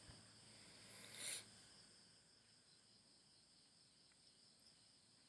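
Near silence: faint steady hiss of a quiet recording, with a short breathy noise about a second in.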